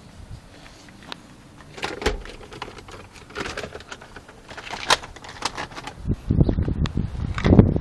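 Handling and movement noise inside a car cabin: scattered clicks and rustles, then heavier low bumps and rustling near the end as someone shifts out of the seat to climb out.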